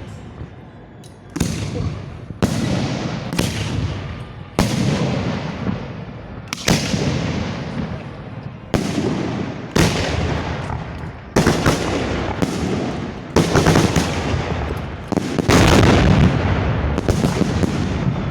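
Fireworks display: aerial shells going off one after another in loud, sharp bangs about once a second, each followed by a long rolling echo.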